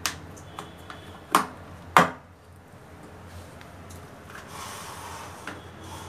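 Three sharp plastic knocks, the last the loudest, as a portable washing machine's plastic clamp bracket is fitted onto a plastic bucket rim, then a faint soft hiss a little before the end. The machine's motor is not running.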